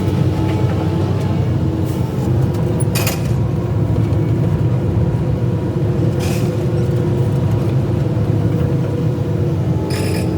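Excavator's diesel engine running steadily, with three short hissing bursts: about three seconds in, around six seconds, and near the end.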